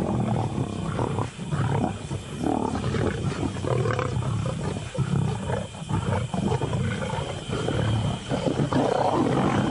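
Lions growling over a freshly killed bull: a continuous low rumble with irregular, louder growls.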